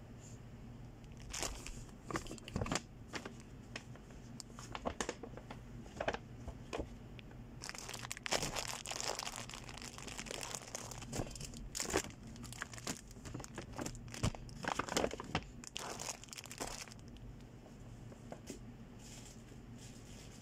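Plastic snack wrappers and paper packaging crinkling and rustling as they are handled and packed into a cardboard box. The crinkling comes in irregular bursts, thickest in the middle, and dies away near the end.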